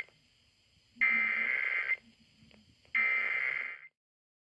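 Emergency Alert System SAME header: bursts of digital data tone about a second long, repeated with one-second gaps. The tail of one burst is right at the start, the next two come about one and three seconds in, and the last cuts off abruptly just before four seconds. It encodes the start of a Required Monthly Test.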